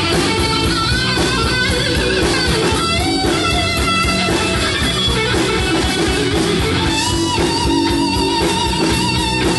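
Live rock band playing an electric guitar solo over bass and drums, with held and bending guitar notes.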